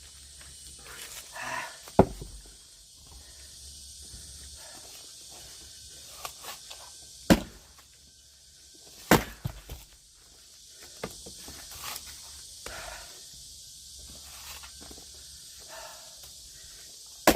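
Axe blows splitting firewood: four loud, sharp strikes, unevenly spaced, with quieter scuffs and small knocks between them.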